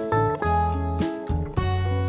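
Background music with acoustic guitar and low bass notes.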